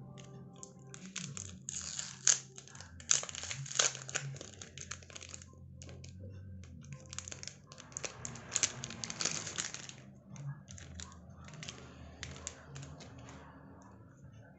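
Packaging being handled and opened: crinkling and rustling in two busy stretches, then scattered crackles near the end.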